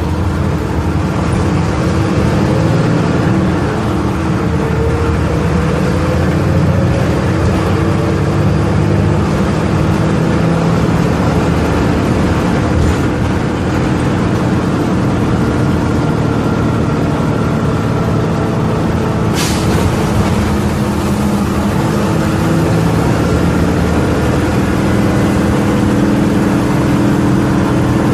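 Volvo B270F city bus's front-mounted diesel engine running under way, its pitch rising and settling as it pulls. About two-thirds of the way in comes a short sharp hiss of air, like an air brake being released.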